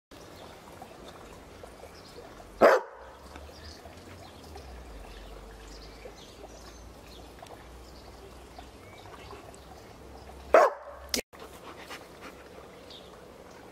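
Berger Picard dog barking on command, two loud single barks about eight seconds apart, the second followed closely by a sharp click.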